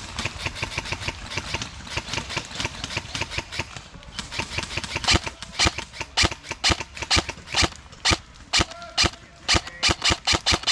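Airsoft guns firing: a fast, rattling string of shots at first, then from about halfway louder separate shots, roughly three or four a second.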